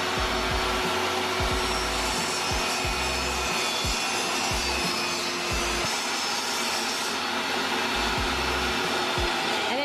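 Benchtop table saw running steadily, its blade cutting into a wooden board to make the grooves for a joint.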